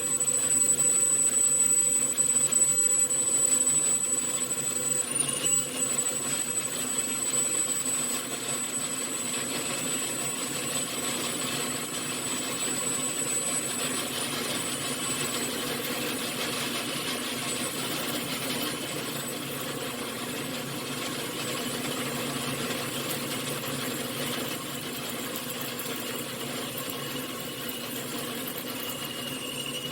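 A 1953 Logan 12" x 24" engine lathe running steadily while turning aluminum spacer stock, with a thin steady high whine over the machine's hum. It is loudest in the first few seconds, then settles slightly quieter.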